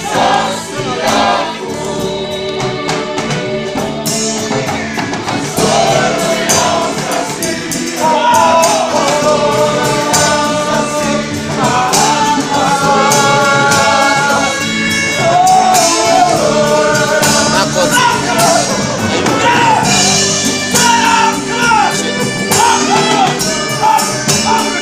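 Group of voices singing together in chorus over a steady percussion beat.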